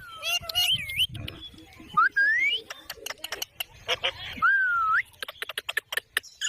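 Indian ringneck parakeet calling. Short wavering chatter comes first, then a rising whistle about two seconds in and a dipping-then-rising whistle later, with runs of sharp clicks in between.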